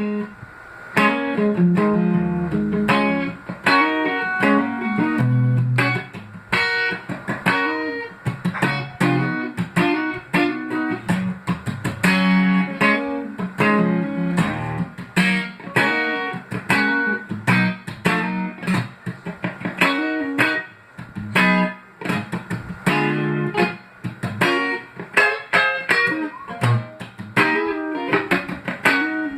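Fender Stratocaster electric guitar being played, a steady stream of quickly picked notes mixed with chords, several notes a second.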